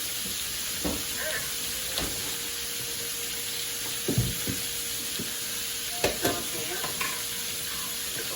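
A pan sizzling steadily on the stove, with a few sharp knocks and scrapes of a utensil stirring in it.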